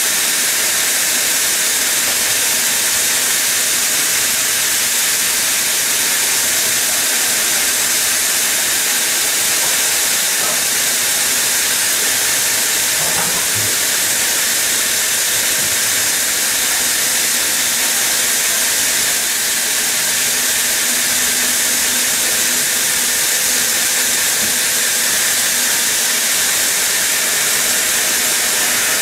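TGQ 160 multi-blade saw stone cutting machine sawing through a stone block under a cooling water spray: a loud, steady hiss of the blades cutting stone.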